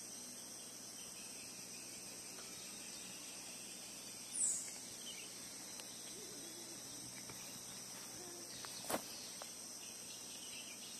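Steady, high-pitched chorus of insects. A short high chirp stands out about four seconds in, and there is a sharp click near the end.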